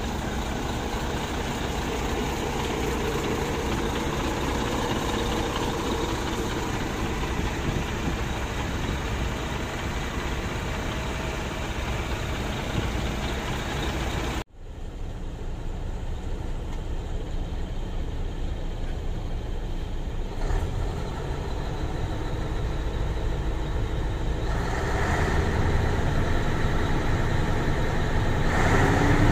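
Scania 143M 450 turbocharged V8 diesel idling, heard from in front of the truck. After an abrupt cut about halfway through it is heard from inside the cab, where the revs are raised, stepping up about 25 s in and climbing again near the end toward roughly 1,500 rpm.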